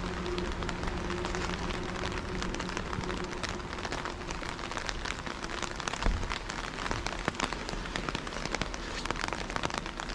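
Steady rain falling, an even hiss with many close, sharp drop hits pattering throughout.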